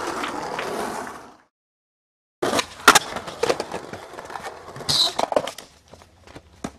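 Skateboard clacks and knocks on concrete: a run of sharp impacts, the loudest about three seconds in, growing sparser near the end.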